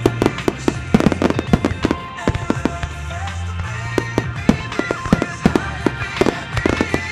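Aerial fireworks shells bursting in a rapid string of sharp bangs and crackles, many each second, over music that plays throughout.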